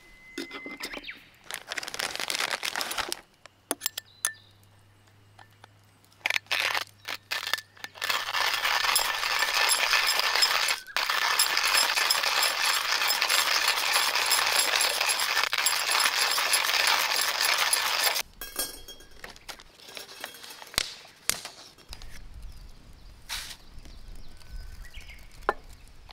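Hand-cranked stainless steel coffee grinder grinding coffee beans: a loud, steady, gritty crunching for about ten seconds, starting about eight seconds in, with a brief break partway through. Scattered clicks and rattles come before it as the grinder is handled, and light taps and clicks follow it.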